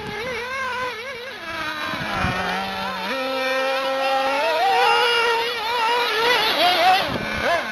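Small nitro engine of a 1:8 scale RC off-road buggy running at high revs, its pitch rising and falling with the throttle. It gets louder as the buggy comes close, about four seconds in.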